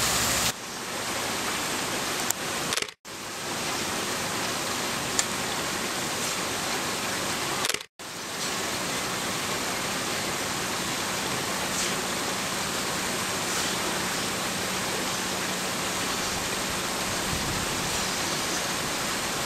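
Steady rushing noise with no clear pitch, cutting out briefly twice, about three and eight seconds in.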